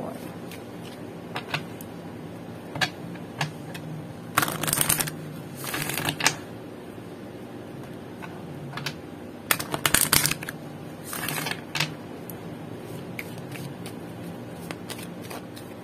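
A deck of oracle cards being shuffled by hand: four short bursts of cards sliding and flicking against one another, with scattered light taps of cards between them, over a low steady hum.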